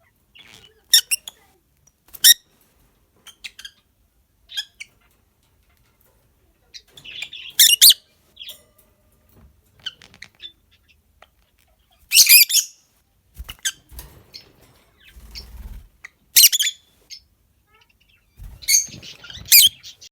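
Peach-faced lovebirds calling in short, loud, high chirps every few seconds, with scattered quieter chatter. A few soft low thuds come in between the calls.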